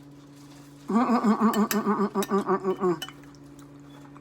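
A woman's voice making a quick run of pulsed vocal sounds, about six a second, for roughly two seconds starting about a second in, over a steady low electrical hum.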